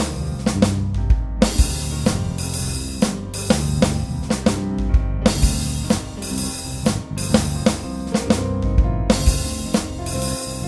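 Music led by a drum kit: a steady beat of bass drum, snare and cymbals over a deep bass line and sustained notes.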